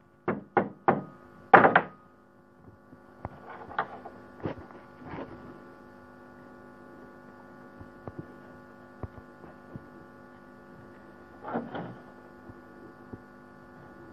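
A hammer tapping small nails into a wooden block: four sharp strikes in the first two seconds, the last the loudest, then a few softer taps. After that a steady electrical hum holds, with a short knock of wood near the end.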